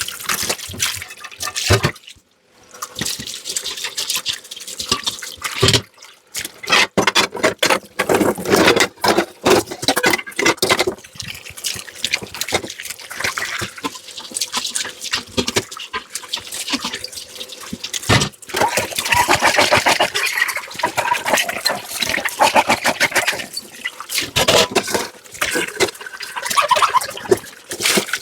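Dishes being hand-washed in a kitchen sink: water running and splashing, with frequent clinks and knocks of crockery and utensils, and a steadier run of water partway through.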